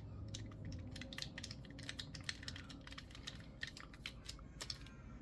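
Quick, irregular light clicks and taps, several a second, of an out-the-front knife's small metal parts being handled.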